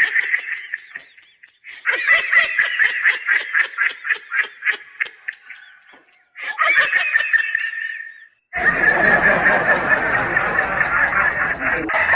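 Bursts of high-pitched laughter. A run of quick, fading ha-ha pulses comes about two seconds in, then a short burst, and a dense unbroken stretch of laughing takes up the last third.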